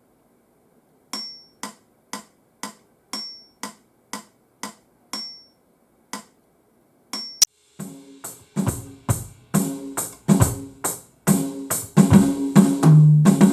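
Metronome click at about two beats a second, with a higher-pitched accent on every fourth beat, counting in. About seven and a half seconds in, the Roland TD-17 module's electronic drum kit sounds come in, playing a kick, snare and cymbal pattern.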